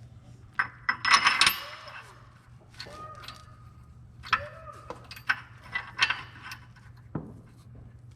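Steel engine parts clinking and knocking together as a main bearing cap is fitted onto a Caterpillar 3412 block: a loud clatter about a second in, then single knocks every second or so.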